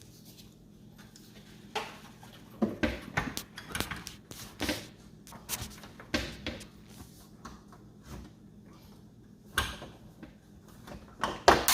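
Irregular clicks, knocks and rattles of a window blind being handled and fitted, with the loudest knock near the end.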